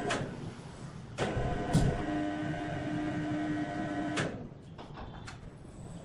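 Electric crane hoist motor running in a spell to lower a heavy wood slab on a wire-rope sling. It gives a steady hum that starts and stops with clicks, with a clunk about two seconds in and a few clicks near the end.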